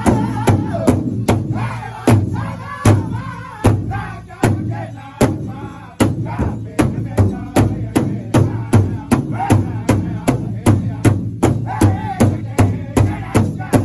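Powwow big drum, a large hide drum struck in unison by several drummers, with the group singing over it. The strokes come spaced a little under a second apart at first, then about six seconds in settle into a quicker steady beat of two to three strokes a second.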